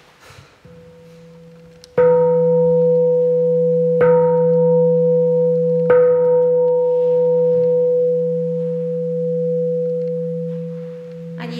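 Large Buddhist temple bell (Vietnamese Bát Nhã bell) ringing faintly, then struck three times about two seconds apart. Each strike sets off a long, deep ringing hum that runs into the next and slowly fades after the third.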